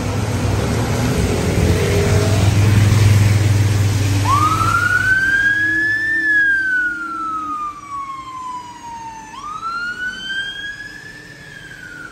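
Heavy traffic on a rain-soaked road, a lorry's engine loud at first over the hiss of rain and tyres. About four seconds in, a police car siren starts, wailing slowly up and down twice.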